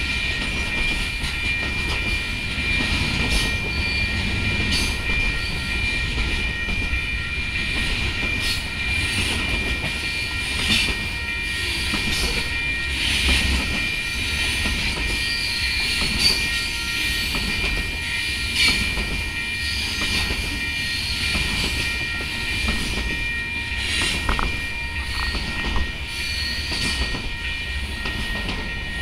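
Freight train rolling past: a steady rumble and clatter of wheels on rail as the cars go by, with scattered clanks and a steady high-pitched tone throughout.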